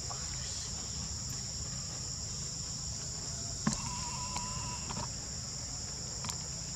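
A steady, high-pitched chorus of insects buzzing without a break. A few soft clicks and a faint steady whistle-like tone lasting about a second sit over it a little past halfway.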